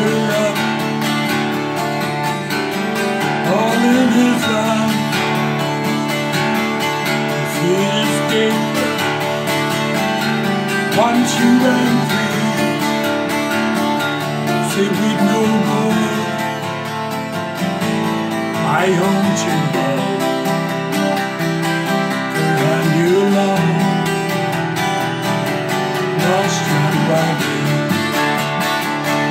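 A man singing an old English folk song to a strummed twelve-string acoustic guitar.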